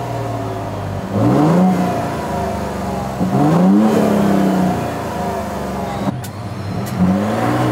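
Toyota Tundra TRD Pro's twin-turbo V6 through its stock exhaust, idling and revved three times while parked. Each rev rises and falls back to idle, and the second one, a few seconds in, is the longest.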